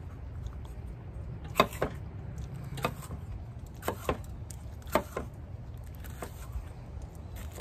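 Chef's knife cutting a vegetable on a wooden cutting board: a series of sharp knocks as the blade meets the board, irregularly spaced and some in quick pairs, over a steady low hum.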